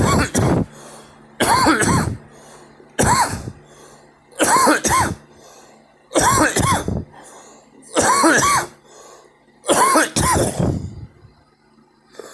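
A person coughing over and over in a steady run of seven fits, about one every second and a half, most of them a quick double cough with a throaty, voiced edge.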